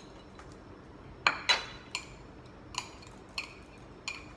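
Eating utensils clinking and tapping against a dish or bowl of food, about six sharp clicks, some with a short ring. The two loudest come close together a little after a second in.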